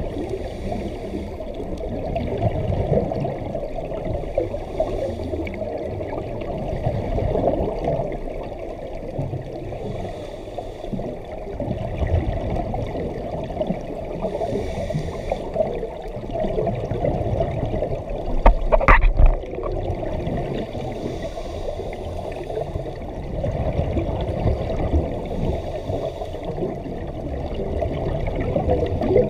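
Scuba regulator exhaust bubbles heard underwater: a muffled rushing, gurgling noise that swells every few seconds as the diver breathes out. There is a single short knock a little after the middle.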